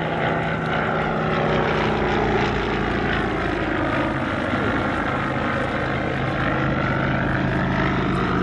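Vintage single-engine light aircraft flying its display, the piston engine and propeller running steadily with slight shifts in pitch.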